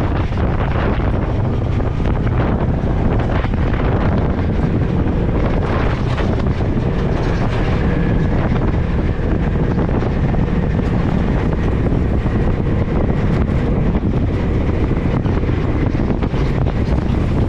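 Off-road vehicle engine running steadily, with wind buffeting the microphone.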